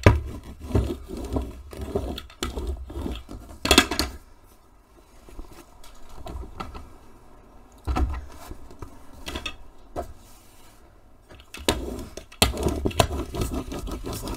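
Hand ink roller (brayer) rolled back and forth over fabric on a worktable: a low rumble with a rapid run of clicks and knocks. It eases off in the middle, with one thump about eight seconds in, then picks up again near the end.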